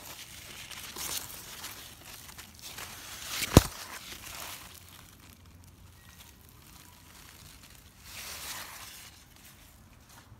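Squash leaves and grass rustling as they are brushed and pushed aside by hand, in irregular bursts. One sharp knock about three and a half seconds in is the loudest sound.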